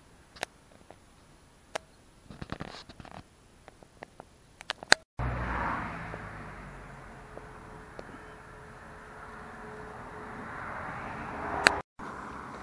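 Soft footsteps and small clicks at first. After an edit about five seconds in, a steady rush of road traffic beside a lane takes over, easing off and then swelling again as vehicles pass, before cutting off just before the end.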